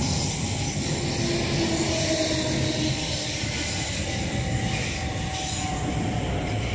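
Red South Western Railway suburban electric multiple unit running past along the platform: a steady rumble of wheels on rail with a faint shifting motor whine.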